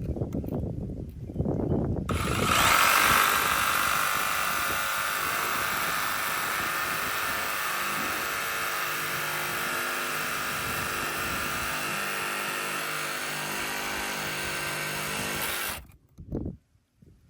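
A power tool starts about two seconds in, runs steadily for about thirteen seconds, then cuts off abruptly.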